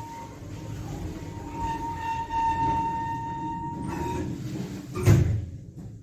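Techno machine-room-less passenger lift car running, with a steady low rumble and a high steady whine from about one to four seconds in, then one loud clunk about five seconds in.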